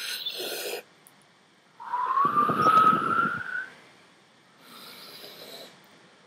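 People miming blowing up a balloon: a quick deep breath in, then a long loud blow out through the lips with a tone that rises in pitch, then a softer breath.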